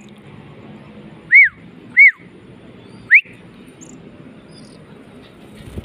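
A person whistling three short, loud whistles to call a tame oriental magpie-robin. The first two rise and fall, and the last is a quick upward sweep.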